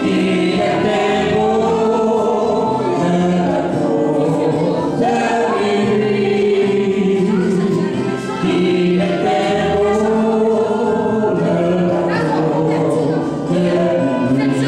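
A man and a woman singing a duet into microphones over a karaoke backing track.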